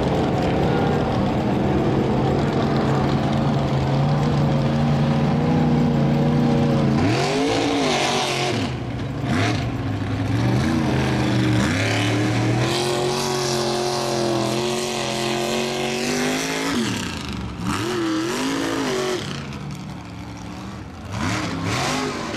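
Engine running hard at a steady high speed, then revving up and dropping back several times.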